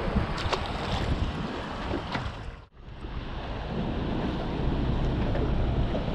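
Wind buffeting the microphone over water lapping against a small boat, with a few light knocks in the first two seconds. The sound drops out for an instant just under three seconds in, then the wind and water carry on.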